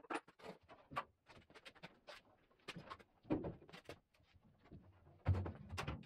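Scattered light clicks and knocks, with a fuller clunk near the end, as a VW Beetle door is worked free and lifted off its hinges.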